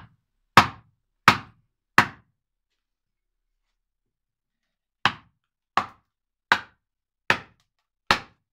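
Wooden mallet striking the back of a splitting blade driven into a block of wood, splitting it into shingle blanks: sharp knocks about 0.7 seconds apart, four of them, a pause of about three seconds, then five more.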